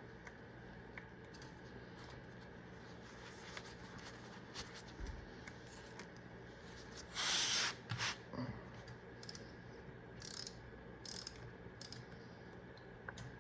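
Hand tools being handled during an oil change: scattered light clicks and metallic rattles, with a louder rasp of about half a second around seven seconds in and a few shorter ones after it.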